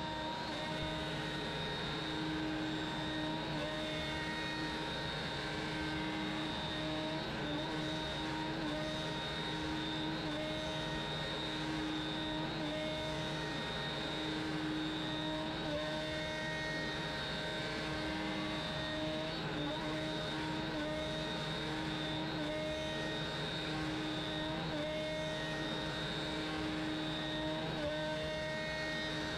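Shapeoko CNC router's spindle running at speed as its bit mills a circular pocket into a hardwood block: a steady whine of several held tones over the hiss of cutting.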